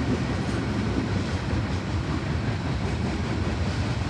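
Union Pacific coal train rolling past: a steady low rumble of railcar wheels on the rails.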